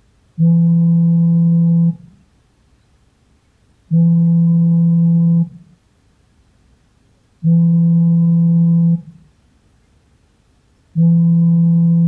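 Samsung smartphone vibrating for an incoming call: four buzzes of about a second and a half each, repeating evenly about every three and a half seconds, each a steady low hum.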